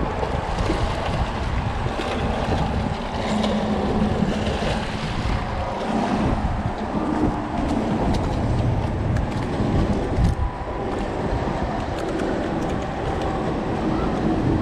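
Wind rumbling hard on the microphone, with choppy water washing against the rocks.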